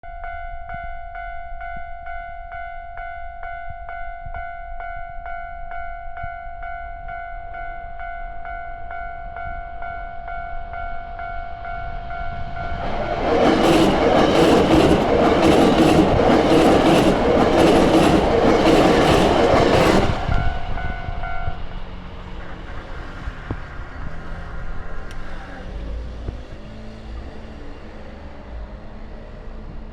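Level-crossing warning bell ringing at about two strikes a second. About 13 s in, a Hankyu 6300-series electric train passes at speed, loud for about seven seconds, with a regular clatter of wheels over rail joints. The bell stops shortly after the train has gone, leaving a faint low rumble.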